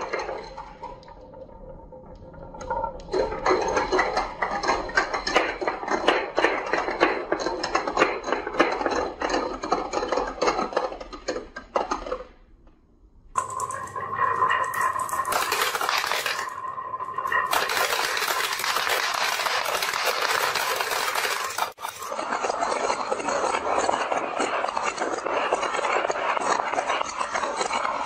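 Glass marbles rolling down a wooden serpentine track, a dense rattle of clicks and clinks as they knock against one another and the wooden walls. The rattle stops briefly about halfway, then starts again.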